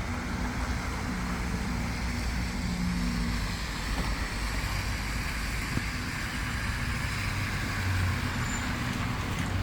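Steady hiss of rain over a vehicle engine's low steady hum, which fades about a third of the way in and comes back near the end.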